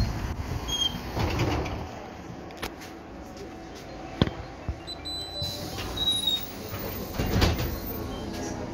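Trolleybus folding doors working: clicks and knocks of the door mechanism, with one sharp click about four seconds in, over low cabin rumble.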